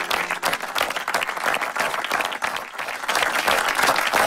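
A small crowd of people clapping together: steady, dense applause.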